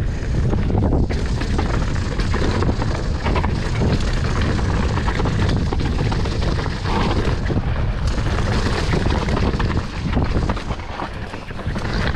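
Wind rushing over the camera microphone on a mountain bike riding fast down a dirt trail, with the bike rattling over bumps.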